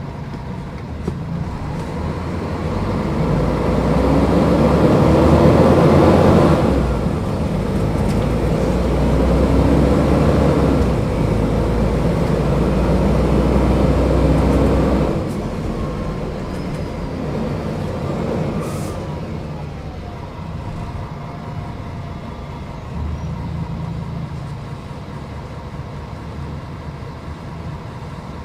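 Mercedes-Benz O500UDA bus's diesel engine pulling under acceleration, its pitch rising to a gear change about six seconds in, then climbing again. About fifteen seconds in the throttle is released and it drops to a quieter steady run, with a short sharp hiss a few seconds later.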